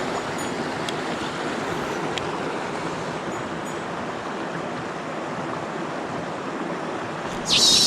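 Mountain stream water rushing steadily. Near the end a sudden loud, high-pitched sound with a wavering tone cuts in.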